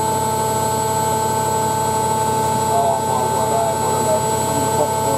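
Hoover Ecologic 1300 washing machine running steadily, its motor giving a steady hum with a fixed, high-pitched whine.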